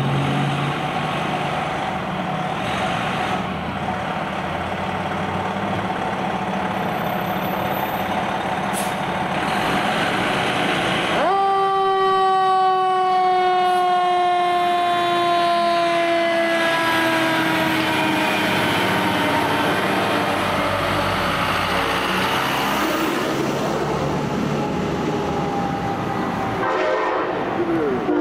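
A Pierce fire engine pulling out on a code 3 run, its engine running under the siren. About eleven seconds in, a loud siren tone starts suddenly and slowly falls in pitch over several seconds. Another pitched tone starts near the end.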